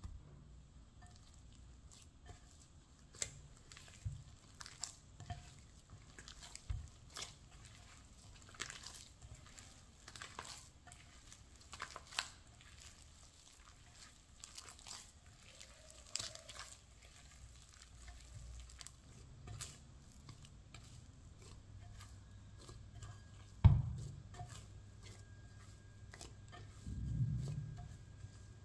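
Hands kneading butter into sticky bread dough in a bowl: irregular wet squishing and sticky tearing sounds, with a loud thump near the end and a duller thud just after.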